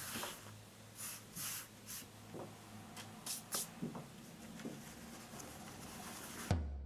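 Cloth rustling and rubbing in soft, scattered brushes as a lined fabric bag is turned right side out by hand. Near the end the rustle cuts off and a low hum with a dull thud comes in.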